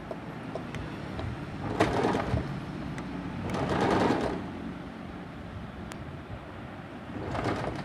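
Usha Wonder Stitch electric sewing machine stitching in three short runs, its speed set by pressure on the foot pedal. Each run is a fast, even rattle of the needle going up and down.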